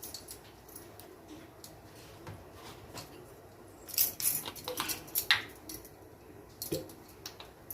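Light clicks and clinks of kitchen utensils being handled, scattered and busiest between about four and five and a half seconds in.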